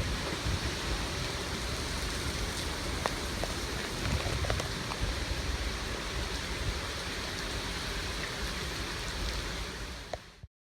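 Steady hurricane rain falling, with scattered faint ticks of drops striking; it cuts off abruptly near the end.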